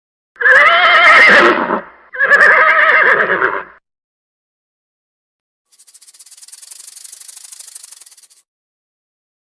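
Two loud, wavering animal calls, each about a second and a half long, followed a couple of seconds later by a quieter, high, fast-pulsing rattling buzz lasting nearly three seconds.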